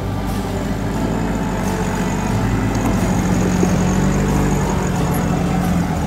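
Engine of an off-road 4x4 running with a steady drone.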